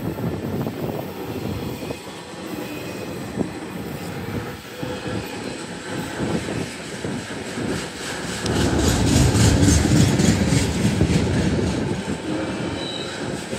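Autorack freight cars rolling past close by: a steady rumble and clatter of steel wheels over the rails, growing louder with a dense rattle for a few seconds past the middle.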